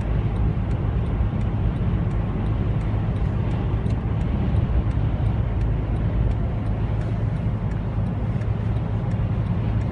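A car driving on a highway, giving a steady low rumble of engine and tyre noise, with faint light ticks scattered throughout.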